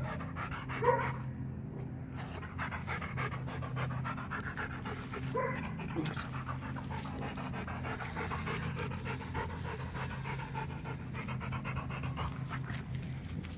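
Rottweiler panting steadily as it sniffs around a hole it has dug in the soil.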